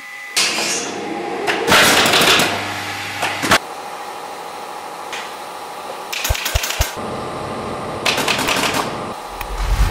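Pneumatic upholstery staple gun firing in quick runs of shots into a wooden sofa frame, fixing the fabric cover, with rustling of the cloth as it is handled.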